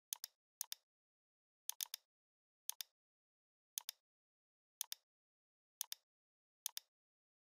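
Computer mouse button clicked eight times, roughly once a second; each click is a quick press-and-release tick pair.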